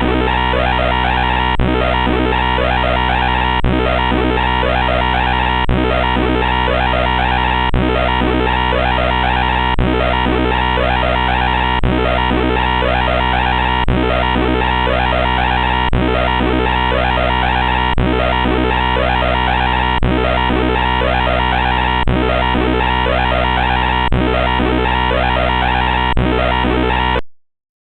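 Harsh, lo-fi synthesized sound generated by the paradestr.exe program: a dense, noisy loop that repeats about every two seconds, full of quick falling pitch sweeps. It cuts off abruptly near the end.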